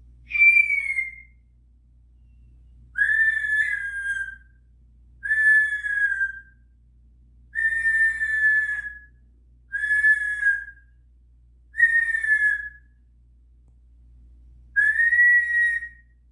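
A parrot giving seven high whistled calls, each about a second long and sliding slightly down in pitch, with pauses of one to two seconds between them.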